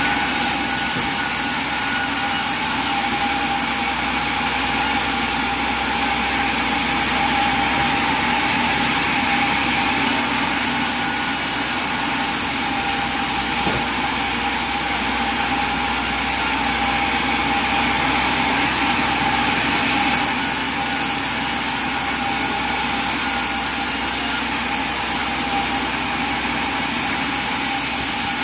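Old sawmill machinery running steadily, with a constant whine over a hiss.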